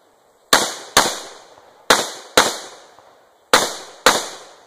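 Rifle shots fired as quick double taps: three pairs, the two shots in each pair about half a second apart. Each shot rings off in a short echo.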